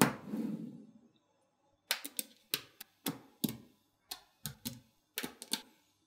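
Small magnetic balls: a sharp click and a short sliding rustle as a block of balls is pushed along the table into line, then about a dozen sharp clicks, some in quick pairs, as the blocks of balls clack together.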